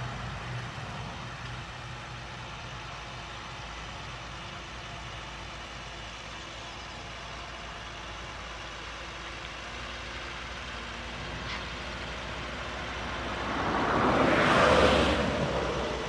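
Case IH Puma tractor's diesel engine running steadily under load while ploughing. A louder swell of sound rises and fades near the end.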